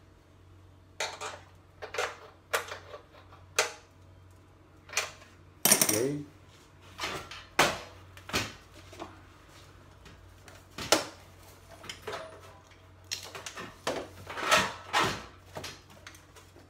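Irregular metallic clinks and knocks of small hardware against the steel mounting bracket and hotplate of an electric cooktop as the hotplate's washer and nut are fitted, with the loudest knock about six seconds in and a quick run of clinks near the end.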